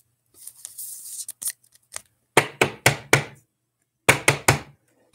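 A brief scraping rustle of a card being slid into a rigid plastic top loader, then two quick runs of sharp, loud knocks, four and then three, from hands bumping the camera.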